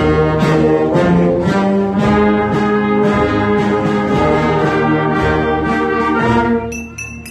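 Concert wind band playing full sustained chords over a steady beat about twice a second, getting quieter near the end.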